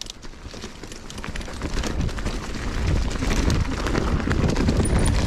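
Mountain bike rolling over a leaf-covered forest trail: tyres crackling through fallen leaves with many small clicks and rattles, under a low wind rumble on the microphone. It gets louder over the first two or three seconds.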